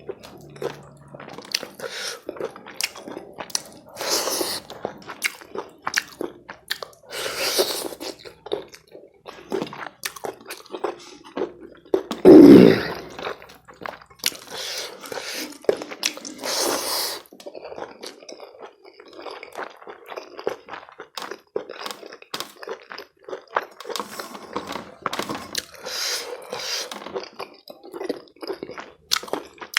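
Close-up mukbang eating sounds of chicken curry and rice: steady wet chewing with many quick mouth clicks and some crunching. About twelve seconds in there is one loud, low thump, much louder than the chewing.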